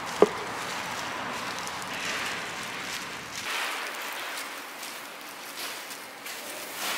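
Soft rustling and patting of flour-coated meat strips tossed and pressed by gloved hands in a metal bowl, dredging them in flour for frying, with one short sharp knock near the start.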